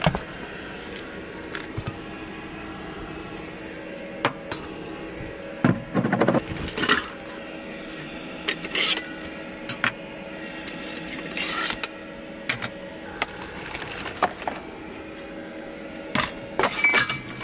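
Kitchen gear being handled and put away: scattered clinks and knocks of dishes, a metal cup and a wooden cabinet door, a few of them louder. A steady low hum runs underneath.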